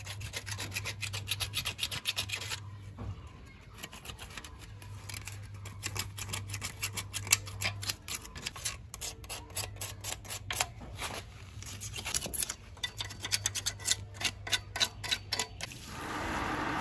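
Rapid back-and-forth scraping strokes, several a second, in runs broken by short pauses, over a low steady hum.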